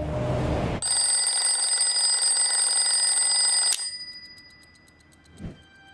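Twin-bell alarm clock ringing with a steady metallic bell clatter for about three seconds after a short whoosh, cut off suddenly as a hand presses down on it. A soft thump follows near the end.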